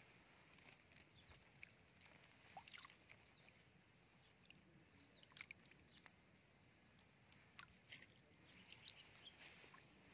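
Near silence: faint pond-side ambience, with scattered soft ticks and a few small chirps.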